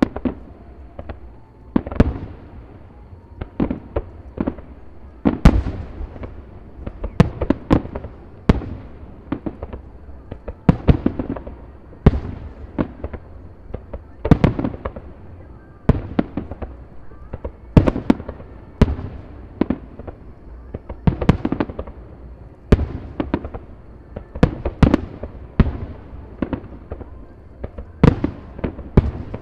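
Fireworks display: a continuous run of aerial shells bursting, sharp booms coming one to three a second with rumbling echoes between them.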